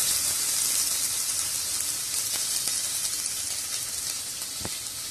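Chopped onions sizzling in hot mustard oil in a steel pressure cooker, the sizzle slowly dying down. A single click near the end.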